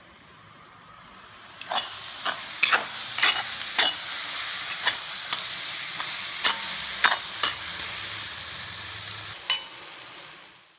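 Onion-and-spice masala sizzling in a kadai while a steel spatula stirs it, scraping and clacking against the pan about twice a second for several seconds, with one more clack near the end. The sizzle fades in over the first second or two.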